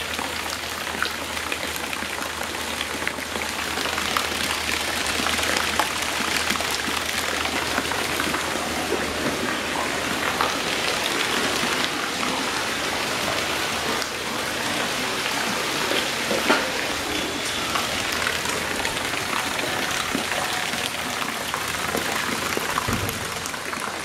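Garden pond fountain and small rock waterfall splashing steadily into the pond, falling water pattering on the surface, with one brief knock about two-thirds of the way through.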